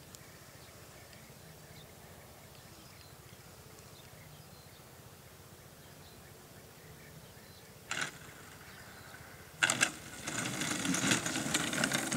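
Two-stroke chainsaw engine of a large model airplane, faint and steady at first while the plane is far off and throttled back for landing. About ten seconds in a sudden loud noise comes as it reaches the ground nearby, followed by loud rattling engine and grass noise as it rolls in.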